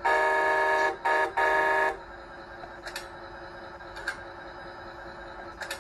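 Simulated truck air horn from an RC truck's onboard sound module, played through its small speaker: a long blast, a short one, then another long one. After the horn, a steady hum continues with a few faint clicks.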